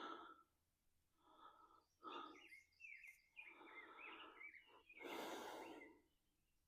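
Faint heavy breathing, several breaths about a second apart with the strongest near the end, laboured from chest and sinus congestion. Birds chirp briefly in the background midway.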